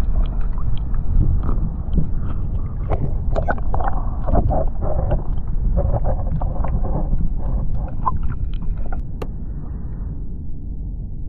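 Steady low rumble of moving water and wind buffeting the microphone, with scattered small clicks and knocks throughout.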